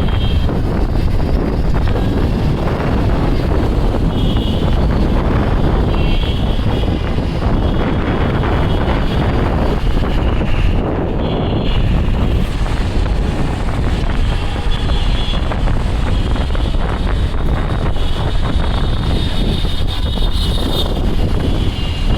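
Wind buffeting the phone's microphone on a moving bike: a loud, steady rumble with road and traffic noise under it, and short higher tones that come and go.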